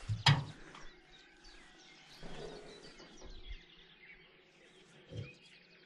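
A single sharp knock about a third of a second in, then faint outdoor background with birds chirping and a few soft knocks or rustles.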